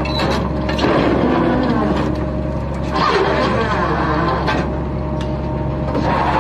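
Steady drone of a fishing vessel's engine and deck machinery while the purse-seine net is hauled, with crew voices calling over it a few times.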